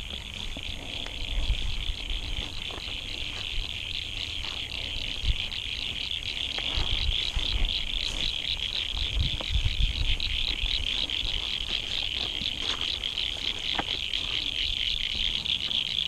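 A dense chorus of many frogs calling at once: a continuous high, rapidly pulsing trill that grows a little louder in the first few seconds.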